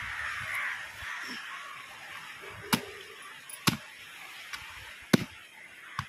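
A large knife chopping into a giant grouper's head on a wooden chopping block: a few sharp chops about a second apart in the second half.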